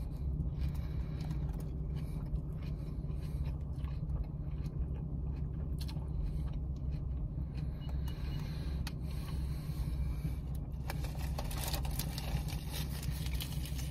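Steady low hum inside a parked car's cabin, with faint clicks and a short rustle near the end.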